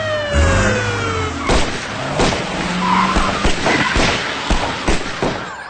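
Ford Crown Victoria police cars pulling away fast, engines running and tyres skidding, under a long falling tone that fades out in the first second or so. A wailing siren starts near the end.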